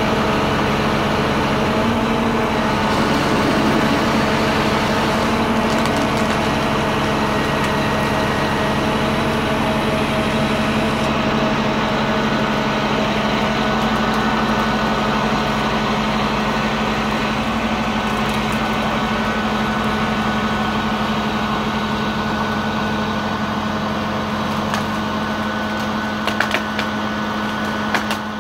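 Steady engine drone of the vehicle driving the hydraulic crane that works a Gierkink GMT 050 tree-shear grab, held at one speed throughout, with a few short knocks near the end.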